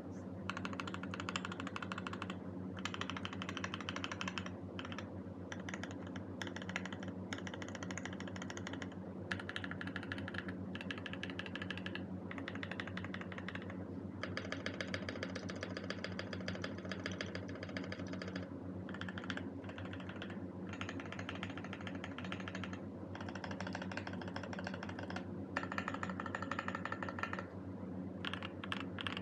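Typing on a Cyberboard mechanical keyboard with a brass plate, Boba U4T 68 g tactile switches and PBT keycaps: fast runs of key clacks lasting a second or two, broken by brief pauses, over a steady low hum.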